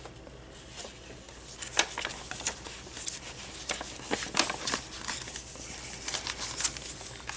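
Paper rustling and crinkling as hands unfold and fold back flaps of eco-dyed paper in a handmade journal, in scattered short rustles and light ticks.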